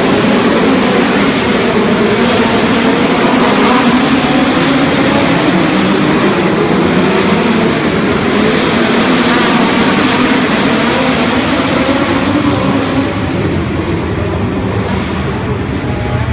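A pack of midget race cars running laps on an indoor dirt track, their engines blending into one loud continuous drone that echoes in the arena. It eases slightly near the end.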